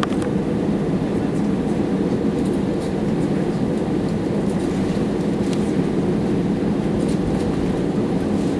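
Steady low rumble inside an airliner's cabin as it taxis: jet engines at low thrust and the wheels rolling on the taxiway, with faint scattered ticks over it.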